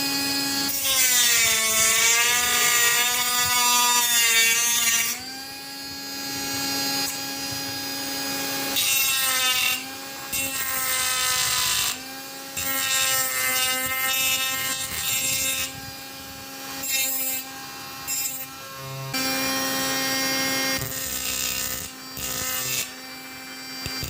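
Homemade 12-volt angle grinder driven by a 775 DC motor, whining as it cuts with a rough grinding noise. The pitch sags under load and recovers, and the sound breaks off and starts again several times.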